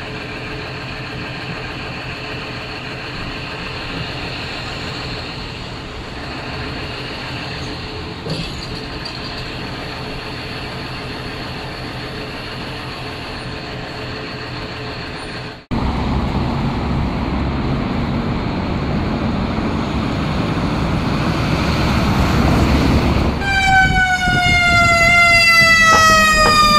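Heavy-duty tow truck's diesel engine idling steadily. After a cut, a fire engine's diesel engine runs loudly. About three quarters of the way through, its siren starts: a long falling wail that begins to rise again near the end.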